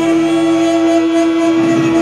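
Saxophones holding a loud, steady, horn-like note with dense overtones, in free-improvised noise music.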